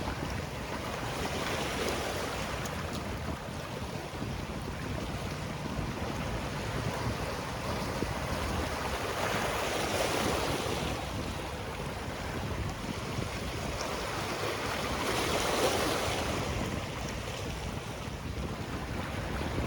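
Sea waves breaking and washing on the shore, swelling every several seconds over a steady rush of surf, with some wind on the microphone.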